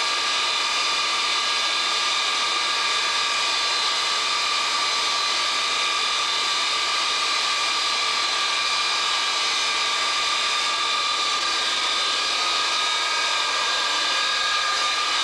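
Pratt & Whitney J57 turbojet engines of a KC-135A Stratotanker running steadily on the ground during a maintenance engine run, heard from inside the cockpit: an even rush of engine noise with several high whining tones that hold level.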